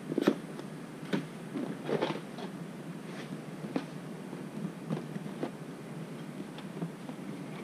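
A valve spring kit's parts box being opened and handled: scattered clicks, taps and rustles of packaging, the loudest just after the start and about two seconds in.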